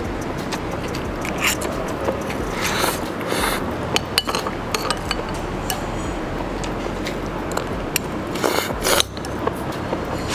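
Chopsticks and a metal spoon clicking and scraping against a porcelain noodle bowl while eating wonton noodles, with a few loud slurps, the longest near the end.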